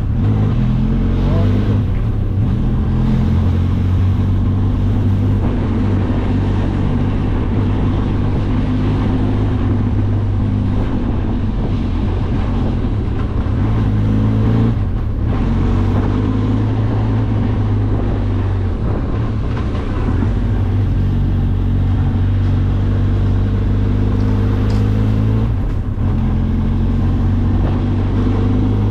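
Benelli TRK 502X's parallel-twin engine running steadily while riding, with wind and road noise; the engine pitch shifts slightly a few times, around the middle and again near the end.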